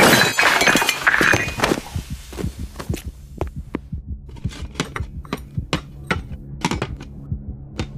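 A loud, dense din dies away over the first two seconds, leaving a run of sharp thuds, often in pairs and roughly two or three a second, over a low steady hum.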